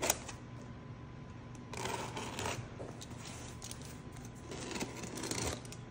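Scissors cutting the packing tape on a cardboard box: a click at the start, then scratchy rasping of blade on tape and cardboard in two short stretches, about two seconds in and again near the end.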